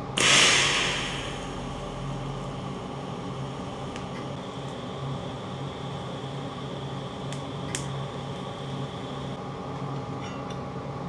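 TIG welding arc: a loud crackling hiss as the arc strikes, settling into a steady electrical hum with a few sharp clicks.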